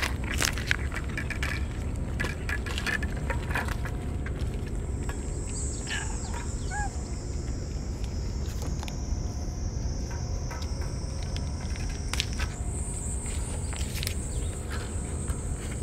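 Stray cats eating wet food from metal dishes, with scattered small clicks and lapping, over a steady high insect drone and a continuous low rumble.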